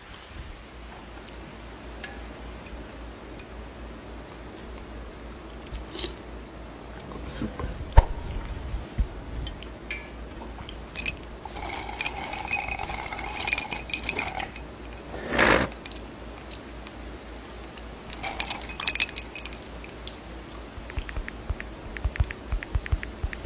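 A high, insect-like chirp repeating steadily about one and a half times a second, over scattered clicks and knocks of tableware at an outdoor table. There is a sharp knock about eight seconds in and a brief louder burst a little past the middle.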